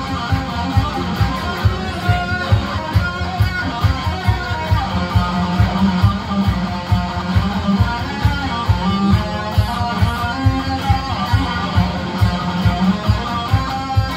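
Electric guitar playing along with a disco backing track, over a steady kick-drum beat about two times a second.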